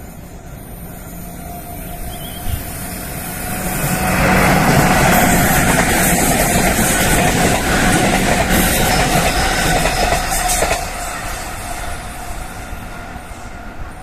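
A JR West 221 series electric multiple unit running past on the rails. It grows louder from about two seconds in, is loudest for several seconds as the cars go by, then fades as the train draws away.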